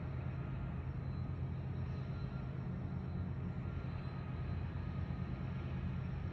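Steady low mechanical rumble with a faint hiss above it, unchanging throughout, like running machinery heard in a field recording.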